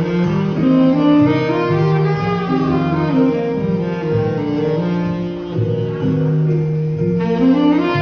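Selmer R54 tenor saxophone with a Vandoren TL4 mouthpiece playing a ballad melody in sustained, connected notes, over a backing track with a low bass line and string accompaniment.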